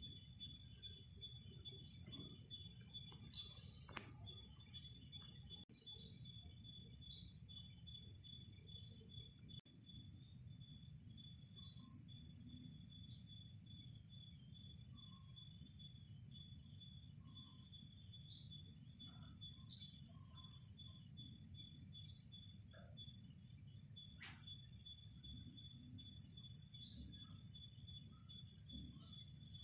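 Night insect chorus: a steady high-pitched shrill of insects with a finely pulsing cricket trill beneath it and scattered faint chirps, over a steady low rumble.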